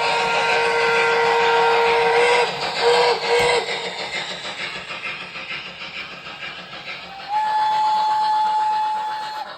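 Model steam locomotive's electronic sound system blowing its whistle: a long blast, then two short toots, with chuffing hiss between them, and another long whistle blast near the end.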